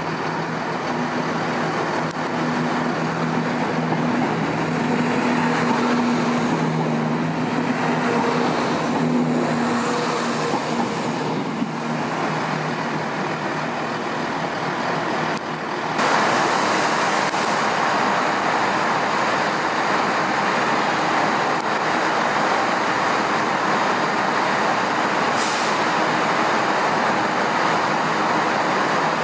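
Diesel trains running at a station. A steady engine hum with low even tones gives way abruptly, about halfway through, to a louder, even rumble, and a brief high squeak sounds near the end.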